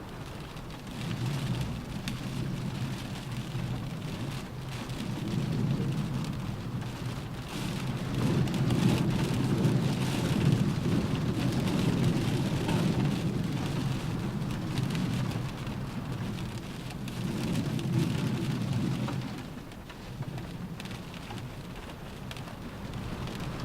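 Rain pattering on a car roof, with a deep rumble underneath that builds from about a second in, is loudest in the middle and dies away near the end.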